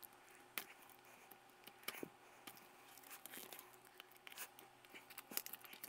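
Faint scattered clicks and light rustling from hands handling a circuit board and its wire leads, over quiet room tone with a faint steady hum.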